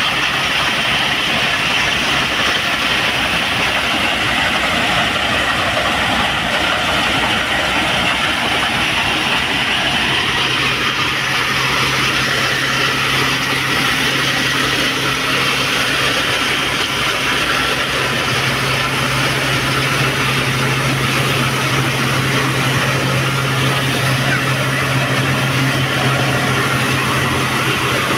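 A King thresher running steadily under load as dried bean plants are fed into it, driven through its PTO shaft and belts by a Fiat 640 tractor's diesel engine. A steady low hum sits under a dense, even machine noise.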